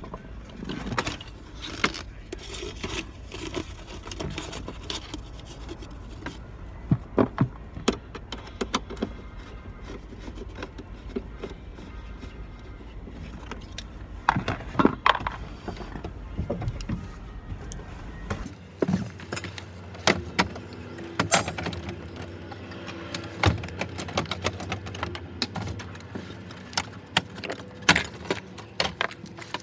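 Hand tools and the plastic evaporator housing under an Isuzu truck's dashboard clicking, knocking, rattling and scraping as the housing is worked loose. A low steady hum underneath stops about two-thirds of the way through.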